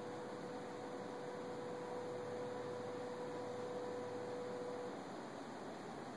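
Steady indoor room tone: an even hiss with a low electrical-sounding hum and a steady mid-pitched tone that stops about five seconds in.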